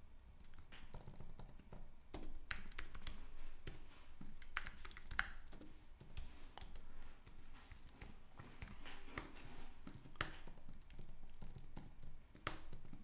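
Typing on a computer keyboard: a run of irregular keystroke clicks with short pauses, as code is entered.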